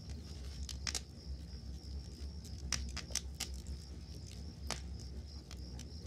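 Campfire crackling, with scattered sharp pops, the strongest about halfway through and another a little before the end. Under it, crickets chirp in a steady high trill, over a low rumble.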